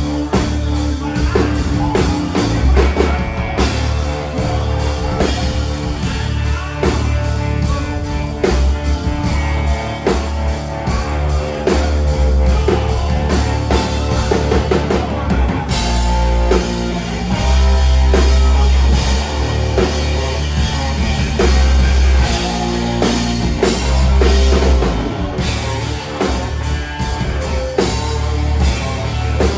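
Southern rock band playing live: drum kit and electric guitars, heard from the side of the stage.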